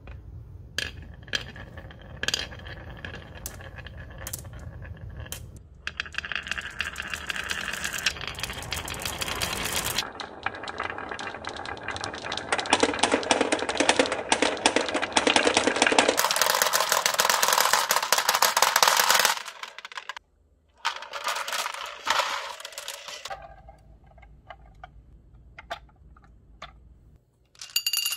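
Glass marbles rolling and clattering down a wavy-grooved wooden track and tumbling into a plastic toy truck bed. A few separate clicks come first, then about six seconds in it builds to a dense, loud rattle that breaks off around twenty seconds in, followed by scattered bursts of clatter.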